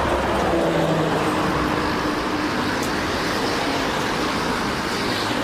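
Steady road-vehicle noise: an engine hum with tyre and traffic hiss, running evenly.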